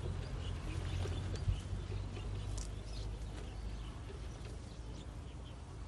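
Electric ATV driving away through tall grass: a low rumble that slowly fades, with a single knock about one and a half seconds in. Birds chirp faintly above it.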